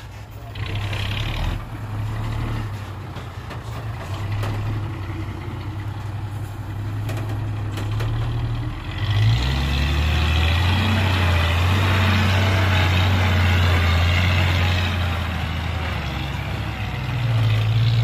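Loaded dump truck's diesel engine running steadily, growing louder and deeper about halfway through as it works harder.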